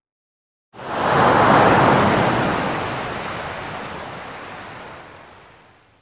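A single wave breaking and washing in: a hiss of surf that starts abruptly after a moment of dead silence, is loudest just after it starts, and slowly fades out over about five seconds.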